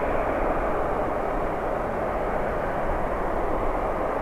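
Jet engines of a JAL Airbus A350-941, Rolls-Royce Trent XWB turbofans, running with a steady rushing noise.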